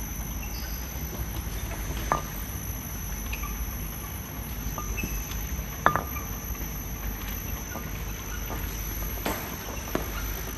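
Glass bottles clinking lightly a few times, loudest about six seconds in, over a steady low machinery hum with a faint high whine.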